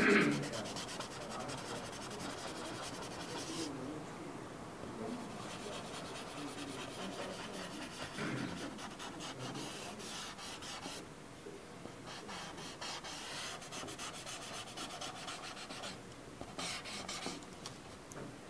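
Carbon-laden drawing tool rubbing across drawing paper in repeated shading strokes, coming in several spells with quieter pauses between.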